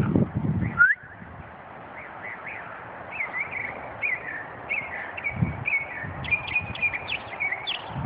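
A small songbird singing a run of short, high chirping notes that come quicker and closer together near the end. Wind buffets the microphone with a low rumble for about the first second.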